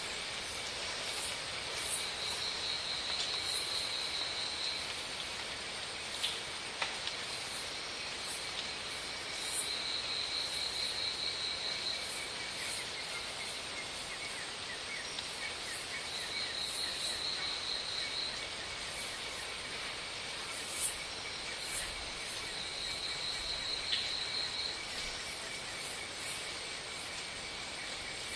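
Insects calling over a steady background hiss. A high, buzzing trill lasts about three seconds and comes back every six or seven seconds, above a constant chirring.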